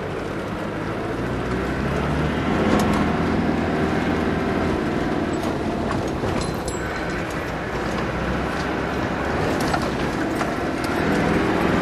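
Land Rover Discovery engine running under load as it drives over a rough dirt track, heard from inside the cabin, with a few short knocks and rattles over the bumps.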